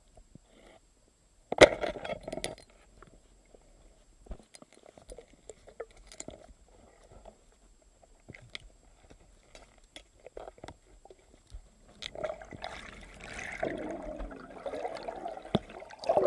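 Underwater sound picked up by a submerged camera in a river: a sharp knock about one and a half seconds in, then scattered faint clicks, and over the last few seconds a rush of water and bubbles that ends in a splash as the camera breaks the surface.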